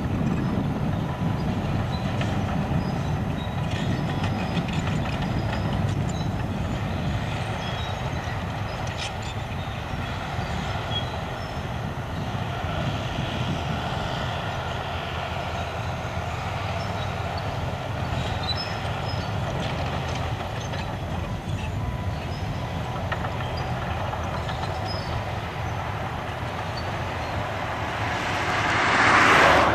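Komatsu crawler dozer's diesel engine running under load as it pushes earth with its blade, its steel tracks clanking. A louder swell of noise rises and falls near the end.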